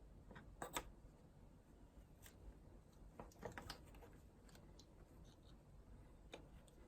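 Near silence with a few light clicks and taps of small objects being handled: a quick cluster about a second in, another a few seconds later, and one more click near the end.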